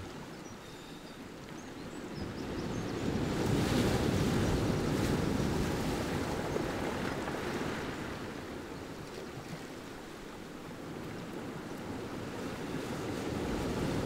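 Sea waves breaking among rocks and washing up a pebble beach, with wind. The surf swells to a peak a few seconds in, eases off, then builds again near the end.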